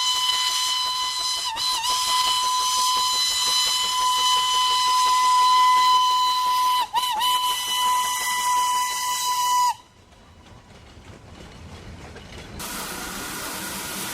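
Steam locomotive whistle blowing one long, loud, steady blast. Its pitch dips briefly twice before it cuts off abruptly near ten seconds in, leaving a quieter hiss.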